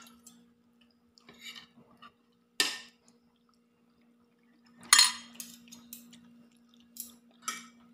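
Metal spoons clinking and scraping against a stainless steel pot and plates: a few sharp clinks, the loudest about five seconds in, then several lighter taps. A faint steady hum runs underneath.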